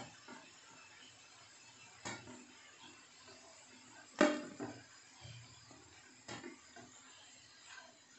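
Slotted spatula knocking against a non-stick frying pan as fried onion pakodas are lifted out of the oil: about five short clinks roughly two seconds apart, the loudest about four seconds in, over the faint sizzle of the frying oil.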